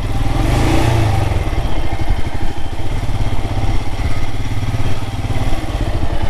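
Royal Enfield Himalayan motorcycle's single-cylinder engine running steadily with a low, even beat.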